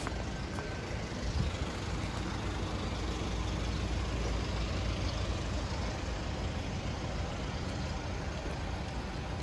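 A vehicle engine idling: a steady low rumble under an even outdoor hiss, with no distinct events.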